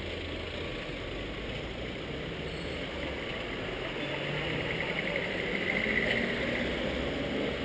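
Steady running noise of a double-decker tram heard from its upper deck: motor hum and wheels on the rails, with street traffic around. It grows a little louder about six seconds in, with a brief high-pitched sound.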